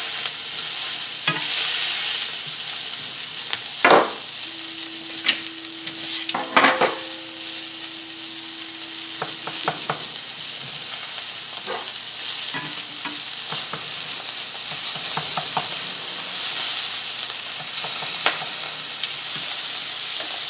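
Wagyu steak searing in hot oil and rendered beef fat in a pan, a steady sizzle. A few sharp clicks and taps cut in, the loudest about four seconds and about seven seconds in, and a steady low hum sounds for about five seconds in the middle.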